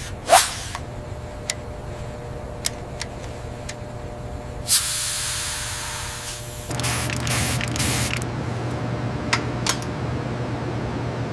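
Hiss of pressurised fluid at a gauge-and-valve pressure-test fitting, in two spells about two and one and a half seconds long starting about halfway in. A sharp falling sweep near the start and a few light clicks sound over a steady low hum.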